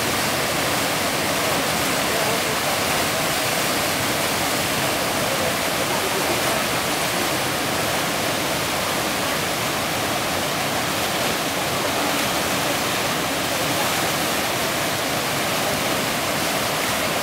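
Steady rushing of whitewater in a tidal rapid at flood tide, where a standing wave breaks continuously.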